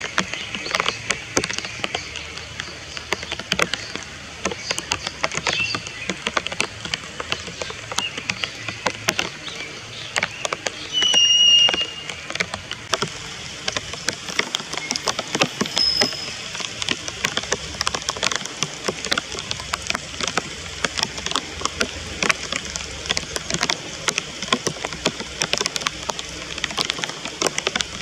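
Rain pattering steadily, with many sharp drops throughout. A short, high bird call stands out about eleven seconds in, with a brief high note about five seconds later.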